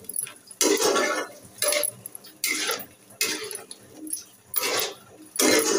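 A metal spatula stirring and scraping cubed flat beans and potatoes around an iron kadai, in separate strokes about a second apart.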